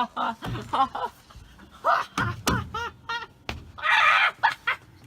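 Young voices making short, broken vocal sounds that are not words, interrupted by a couple of sharp knocks.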